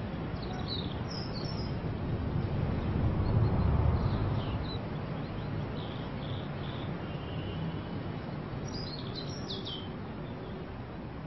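Birds chirping in short clusters of high calls over a steady low background noise that swells briefly about three to four seconds in.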